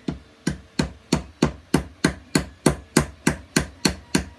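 End of a wooden block striking a 3D-printed plastic puzzle piece on a wooden board, about three knocks a second in a steady rhythm. It is knocking the square pins of the printed parts into their square holes to join the pieces.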